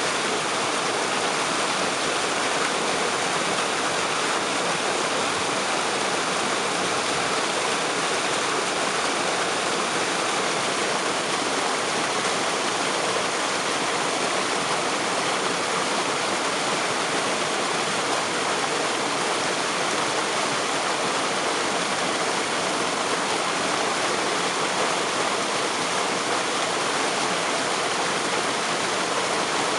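Waterfall: a steady, even rush of falling, splashing water.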